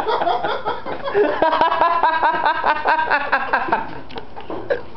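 Men's voices laughing and talking indistinctly, with a run of short, rhythmic bursts of laughter through the middle.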